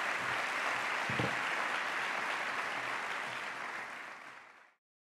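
Audience applauding, dying away and cut off abruptly near the end.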